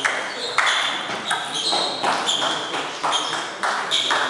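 Table tennis rally: the ball clicking sharply off the bats and the table, about two hits a second, each with a short high ping.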